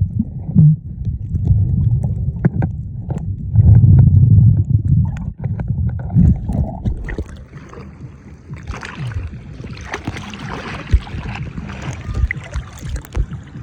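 Muffled water sounds around a camera in the sea: a heavy low rumble with scattered knocks and clicks. About eight seconds in it gives way to a lighter, hissing splash.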